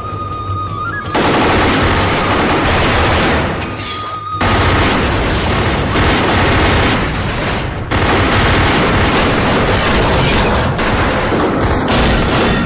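Heavy, sustained automatic gunfire from a movie shootout, starting suddenly about a second in, with brief lulls near four and eight seconds.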